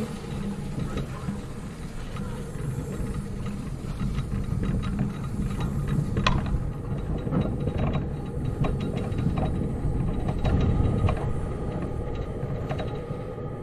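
Steady low rumble with scattered sharp metallic clicks and clanks, the loudest about six seconds in, as the 15-inch-gauge steam locomotive River Mite is turned on a railway turntable.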